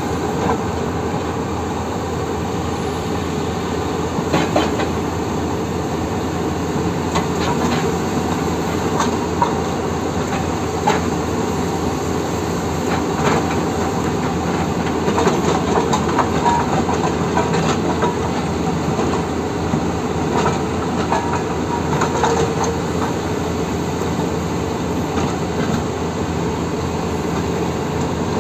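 Excavator-mounted hydraulic breaker hammering rock: a fast, continuous clatter of blows over the running engine, with scattered sharper knocks.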